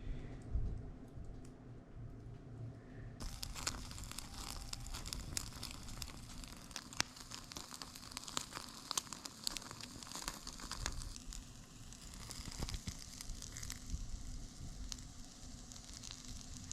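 Wood fire crackling in a portable fire pit: dense, irregular snaps and ticks over a low rumble, starting abruptly about three seconds in.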